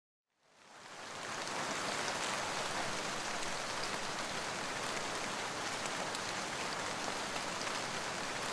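A steady, even hiss like falling rain, fading in over the first second or so.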